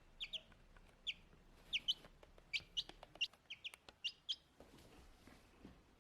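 A baby chick peeping: a string of short, high-pitched peeps, each falling in pitch, often in quick pairs, that stop about two-thirds of the way through.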